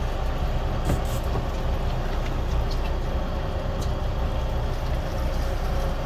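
Boat engine idling: a steady low rumble with a few faint ticks over it.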